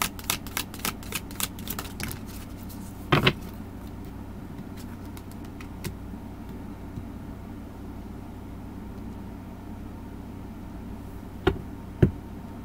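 Tarot cards being shuffled by hand: a quick run of card clicks for the first couple of seconds, then a thump about three seconds in. After that a steady low hum, with two sharp taps near the end.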